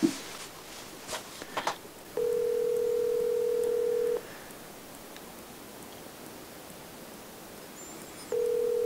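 Phone ringback tone of an outgoing call, the tone of a number ringing at the other end: a steady low beep of about two seconds, a pause of about four seconds, then the beep again near the end.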